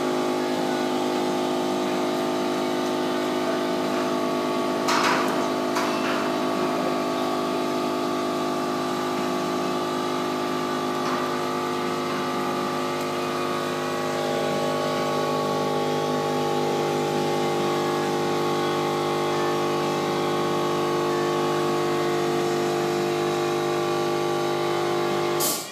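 Steady machine drone, an even hum with several tones, with two short knocks about five and six seconds in; it cuts off suddenly near the end.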